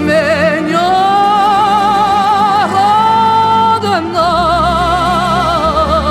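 Female voice singing a Russian folk song in long held notes with wide vibrato, stepping down in pitch about two and a half seconds in and again about a second later, over a steady low accompaniment.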